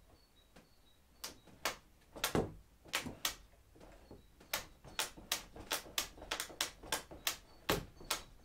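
A run of sharp clicks and light knocks from hand work on the kayak's plastic fittings. The clicks are irregular at first and come about three a second from about halfway through.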